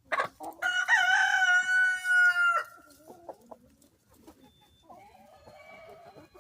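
Rooster crowing once: a long, held call of about two seconds that cuts off sharply. Soft, low clucking from the flock follows.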